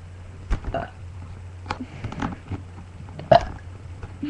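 Several short, sharp throat and mouth sounds from girls trying to burp, the loudest a little over three seconds in, over a steady low hum.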